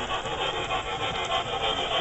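Model train, a steam locomotive hauling passenger cars, running along the track: a steady mechanical rolling and rubbing noise of wheels and gearing with faint regular ticks.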